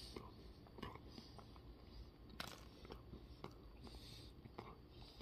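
Faint closed-mouth chewing of a soft peanut butter cookie, with a few small wet mouth clicks and smacks scattered through.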